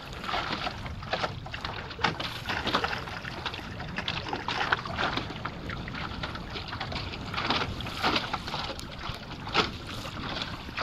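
Choppy water slapping and splashing irregularly against the hull of a small sailboat under way, with wind rumbling on the microphone.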